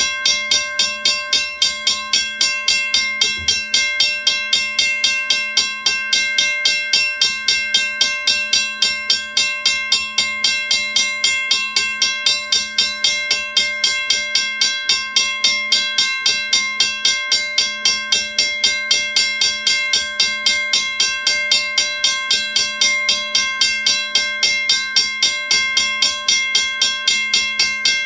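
WCH second-generation mechanical railroad crossing bell ringing continuously off a battery: the clapper strikes the gong in a rapid, even string of strokes, each ring overlapping the next.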